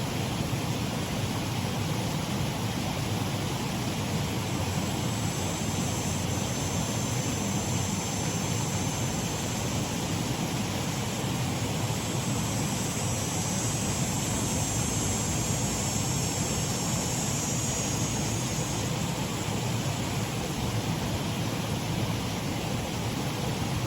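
Water running steadily over a shallow waterfall on a mill race stream, an even rush with no breaks. A faint, high, steady sound sits over it from about five seconds in until near the nineteen-second mark.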